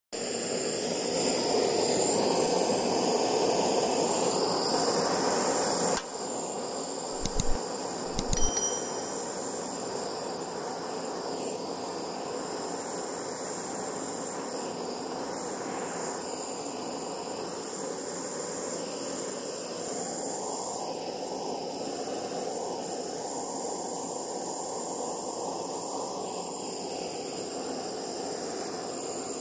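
Butane gas torch flame burning with a steady hiss against aluminium energy drink cans. It is louder for the first six seconds, then drops to a lower even level. A few short, sharp knocks come around seven to eight seconds in.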